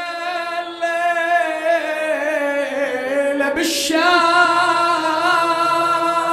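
Wordless sung introduction to an Arabic mourning elegy: a voice holding long notes that waver in pitch. A short rushing noise cuts across a little under four seconds in.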